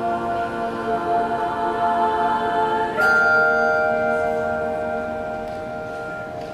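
Handbells ringing sustained chords; about three seconds in a louder new chord is struck and rings out, slowly fading.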